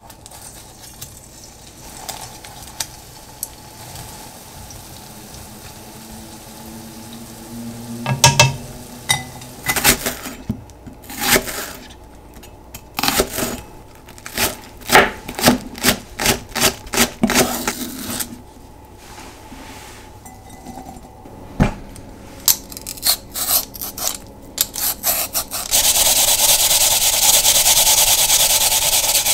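A santoku knife chops Japanese leek on a cutting board in a run of sharp, uneven strokes, followed by a second, quicker run. Near the end, Chinese yam (nagaimo) is rubbed over a hand grater in a steady, loud rasping.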